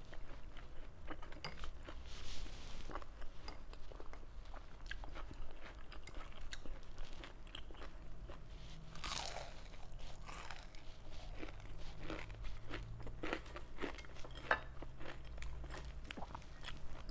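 Close-miked eating sounds: a person chewing and crunching crisp fried round scad (galunggong) and rice, with many small wet mouth clicks and crackles.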